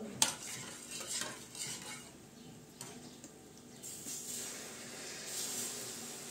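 A metal spoon clinks a few times against a metal bowl and pot. From about four seconds in there is a steady sizzle as hot fat is spooned over steamed rice in the pot.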